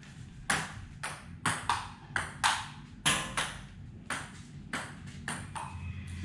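Table tennis ball clicking off paddles and the table in a rally: about a dozen sharp, irregularly spaced clicks, the last few fainter.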